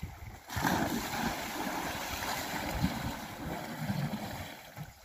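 Water splashing and churning as elephants wallow and tussle in a river. A rush of splashing starts about half a second in and eases off near the end.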